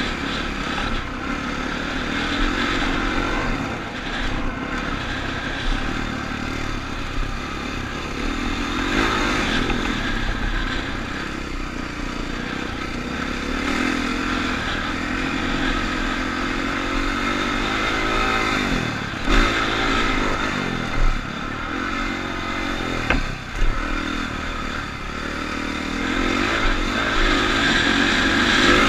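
Dirt bike engine revving up and down as it is ridden around a motocross track, heard from on board, with a few sharp knocks in the second half.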